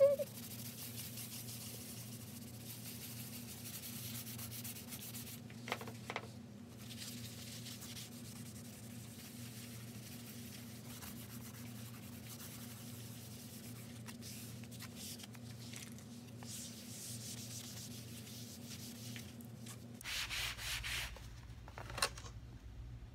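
Chalk Couture board eraser scrubbing back and forth over a chalkboard, wiping off a chalk design, a steady faint rubbing with a low steady hum underneath. Two small knocks come about six seconds in, and the scuffing grows louder near the end.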